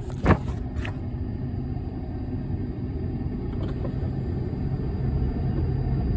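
Steady low rumble with a faint hum, and a short click about a third of a second in.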